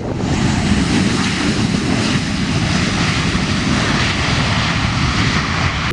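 Ryanair Boeing 737-800's twin CFM56 jet engines running at high power as the airliner rolls fast along the runway: a loud, steady roar.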